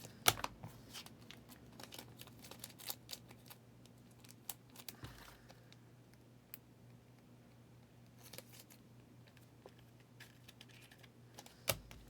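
Faint handling of trading cards and foil card-pack wrappers: scattered crinkles, ticks and small taps, with a sharper click just after the start and another near the end.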